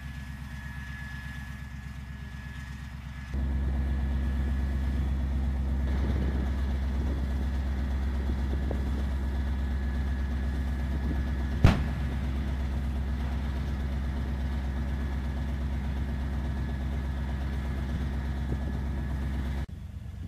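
PzH 2000 self-propelled howitzer's diesel engine idling steadily, with a faint high whine over it; the engine gets louder about three seconds in. About halfway through there is a single sharp knock.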